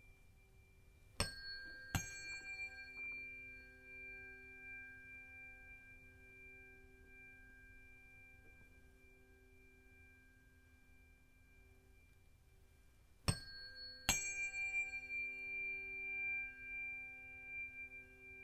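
A pair of tuning forks struck one after the other, each giving a sharp tap followed by a long, wavering high ringing tone. The pair is struck again about 13 seconds in and rings on.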